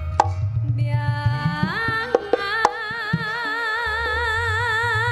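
A female Javanese sinden sings through a PA system over a live campursari band. About halfway through her voice rises into a long held note with wide vibrato, and a few sharp drum strokes sound early on.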